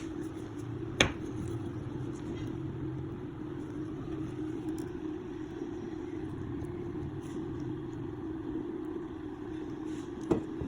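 A steady low machine hum, with a sharp knock about a second in and another near the end.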